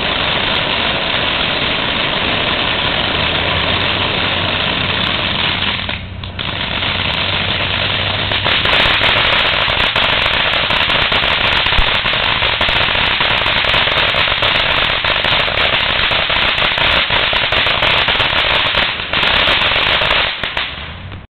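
A 200-gram 'Reflection' firework fountain burning: a loud steady hiss of the spark spray, which grows louder and fills with dense rapid crackling from about eight seconds in. It dips briefly about six seconds in and dies down at the very end as the fountain burns out.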